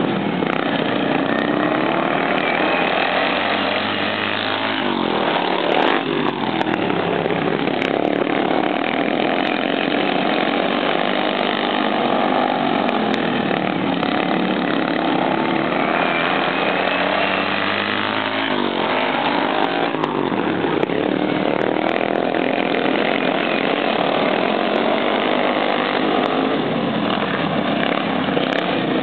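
Several racing lawn mowers' engines running hard as a pack laps the dirt track. The pitch falls as machines pass close, about five seconds in and again about nineteen seconds in.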